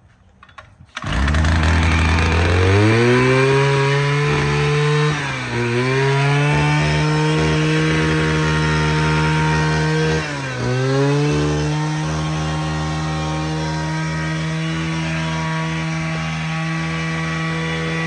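Kawasaki TD33 33cc two-stroke engine on a field trenching machine starts running about a second in and revs up from idle to high speed. It dips briefly twice as the throttle eases, then picks straight back up and runs steadily.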